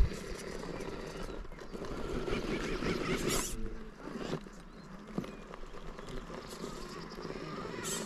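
RC rock crawler climbing a boulder: its electric motor and gears whine in uneven spurts as the throttle is worked, with the tyres scrabbling and clicking on the rock.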